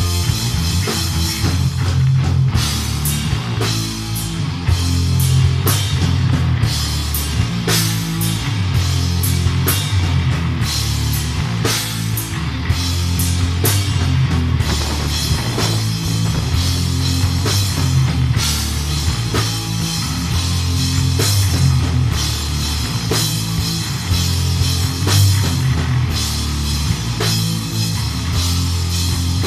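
A rock band playing live: two electric guitars, a bass guitar and a drum kit, with loud, shifting bass notes under steady drum and cymbal hits.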